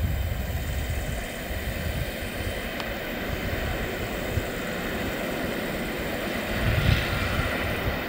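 Classic EN57 electric multiple unit approaching along the line, its motors and wheels a steady rumble that swells a little near the end. Wind buffets the microphone.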